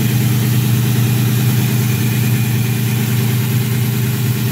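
2004 Ford Mustang GT's V8 engine idling with a steady low hum.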